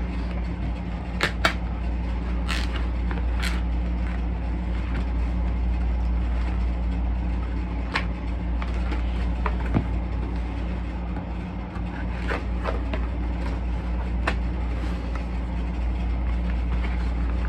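Steady low hum of background room noise, with scattered short clicks and rustles from a vinyl record and its paper and plastic sleeves being handled as it is taken out.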